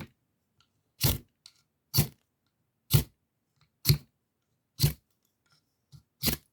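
Strike Force ferrocerium fire starter being struck, with the striker scraped hard down the rod about once a second, seven or so short scrapes in a row, throwing sparks.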